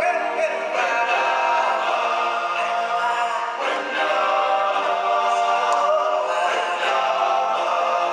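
Stage-show music: a chorus of voices singing sustained chords over the show's backing music.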